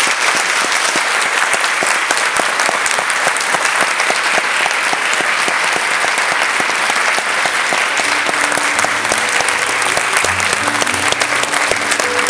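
A large audience applauding steadily with dense, continuous clapping. About eight seconds in, music with steady pitched notes starts up under the applause.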